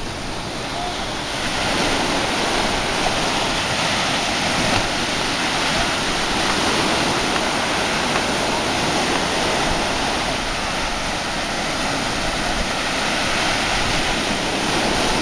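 Sea surf: small waves breaking and washing in, a steady rush that grows louder a second or two in.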